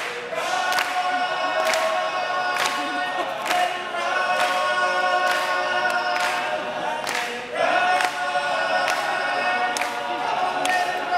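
All-male a cappella group singing, the backing voices holding sustained chords under lead voices. A sharp clap falls on the beat about once a second.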